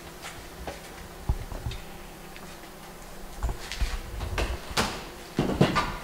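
Scattered light clicks and knocks, with dull thumps and a busier clatter in the second half.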